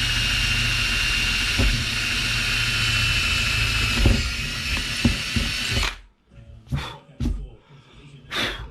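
Power drill boring a hole, running steadily with a high whine and a few knocks, then stopping abruptly about six seconds in. After it come three brief scraping or knocking sounds.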